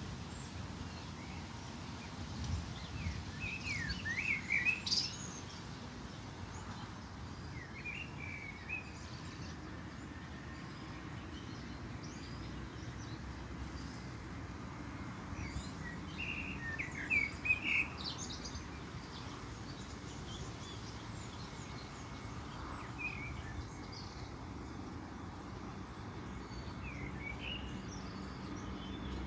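Small birds chirping in brief bursts every few seconds, loudest about four seconds in and again just past halfway, over a steady low background rumble.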